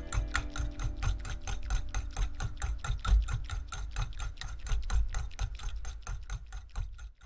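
Metal spring whisk being worked briskly in a ceramic bowl of liquid tea, clicking and scraping against the bowl in an even rhythm of about seven strokes a second. Faint background music fades out in the first few seconds.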